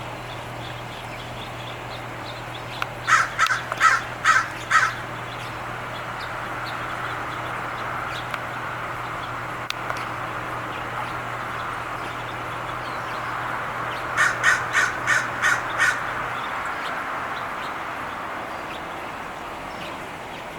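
Crows cawing in two runs: about five caws a few seconds in, and another run of about six later on.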